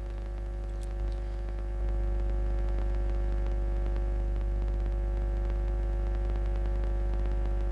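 Steady electrical mains hum and buzz in the recording, a low drone with steady higher overtones, growing a little louder about two seconds in.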